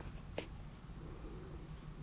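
A cat licking a Chihuahua's head: faint wet licking, with one short sharp click a little under half a second in, over a steady low hum.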